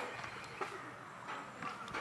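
Harbour ambience by moored boats on calm water: scattered light knocks and clicks, a few a second, over a soft steady background.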